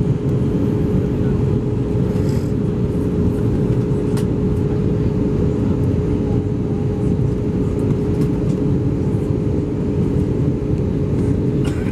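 Steady cabin noise of an Airbus A320 airliner: a constant low roar with a steady hum tone running through it and a few faint ticks.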